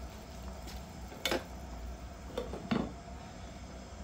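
A glass lid being put on a metal cooking pot: a clink about a second in, then two more knocks a little later as it settles, over a steady low hum.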